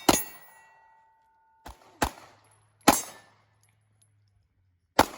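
Pistol shots fired at an uneven pace, four sharp reports plus a weaker one, with the clang and ring of hits on steel targets.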